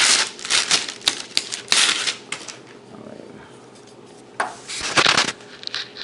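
Rustling and clicking of packaging and small parts being handled while unpacking, in bursts over the first two and a half seconds, then another burst about four and a half seconds in.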